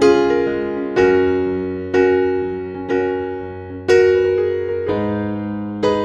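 Background music: piano chords struck about once a second, each ringing and fading before the next.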